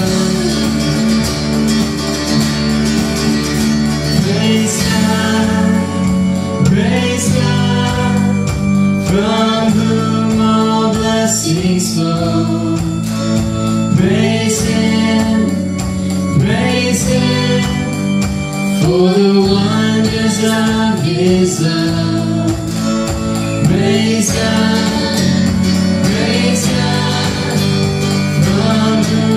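A worship song: a singer over acoustic guitar and a steady bass line.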